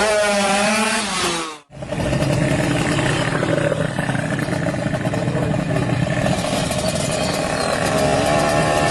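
Drag-tuned Kawasaki Ninja 150R two-stroke single-cylinder engine running, its pitch wavering in the first second or so, then a sudden break in the sound and a steady run.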